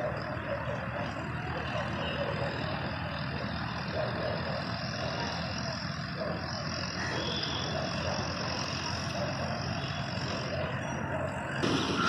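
Steady whirring rush of a huge flock of pigeons in flight, growing louder just before the end.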